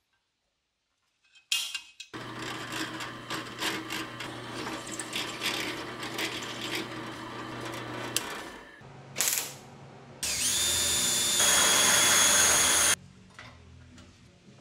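A spring-loaded center punch snaps once on a small steel plate, then a drill press runs with a steady hum and rapid ticking as its bit drills a hole through the steel. Near the end, a much louder high-pitched metal screech lasts about three seconds and then stops suddenly.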